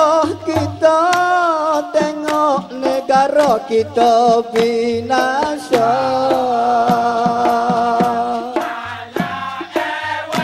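Dikir barat: a male lead singer sings an ornamented, wavering melody into a microphone over sharp percussion strikes, and about six seconds in a male chorus joins, holding long notes together.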